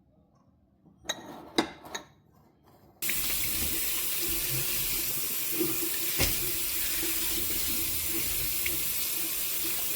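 A few light knocks, then a kitchen tap turned on about three seconds in, water running steadily into a sink.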